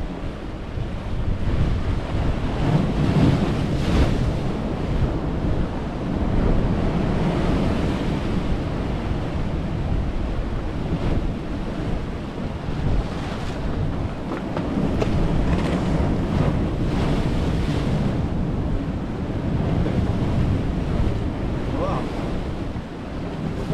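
Sea waves surging and breaking against rocks, swelling and easing every few seconds, with wind buffeting the microphone.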